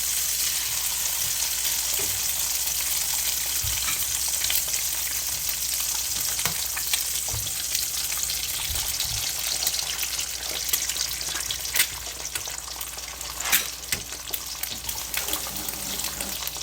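Eggs frying in butter in a skillet, a steady sizzle. A few sharp clicks and taps come in the second half.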